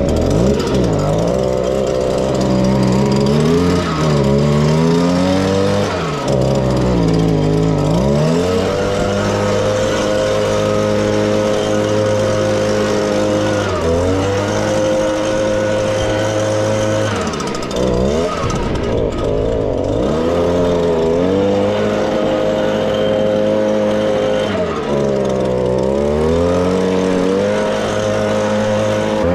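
Petrol leaf blower engine running hard, easing off and picking back up several times, while blowing loose sand off a freshly re-sanded driveway.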